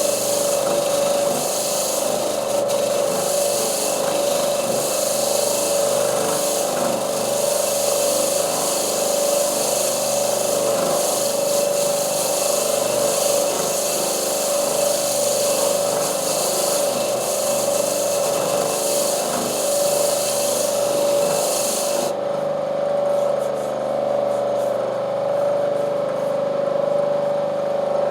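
A power tool motor running steadily with an abrasive rubbing and grinding noise on top. The grinding stops about 22 seconds in while the motor keeps running.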